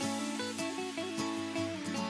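Instrumental background music with plucked guitar-like notes.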